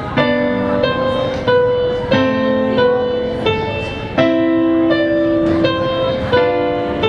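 Solo piano played at a slow, even pace, a new chord or melody note struck about every two-thirds of a second and ringing on until the next.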